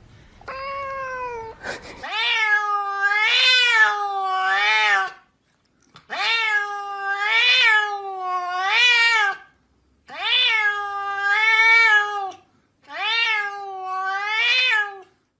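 Domestic cat meowing in long, drawn-out calls whose pitch wavers up and down within each call: a faint call at the start, then four long calls of about three seconds each with short pauses between them.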